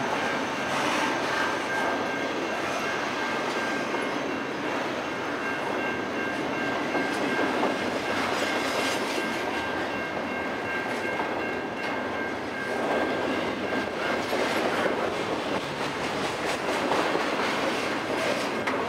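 Double-stack intermodal well cars of a freight train rolling past at speed: a steady rumble with steel wheels clattering on the rails.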